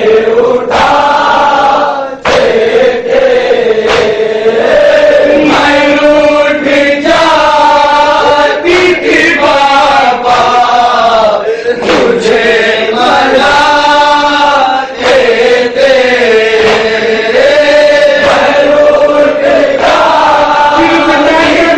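A male reciter chants an Urdu nauha, a Shia lament, through a microphone in long wavering sung lines, with a group of men chanting along.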